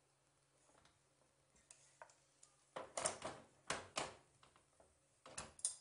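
Cast-iron stovetop toastie maker being handled on a gas stove: a run of sharp metal clanks and knocks as it is moved and opened, the loudest about three to four seconds in and again near the end.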